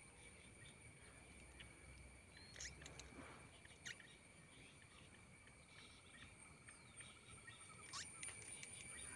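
Near silence: faint outdoor field ambience, with a thin steady high-pitched hum and a few soft ticks and rustles scattered through it.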